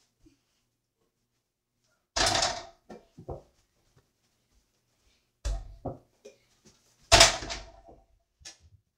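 Knocks and thuds from a mini basketball game on an over-the-door hoop: the ball banging against the hoop's backboard and the door it hangs on. There are three loud hits, about two seconds in, midway and about seven seconds in, with smaller knocks between.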